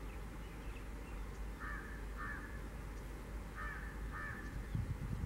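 A crow cawing, two pairs of harsh caws about two seconds apart, over a steady low background noise. A low rumble starts building near the end.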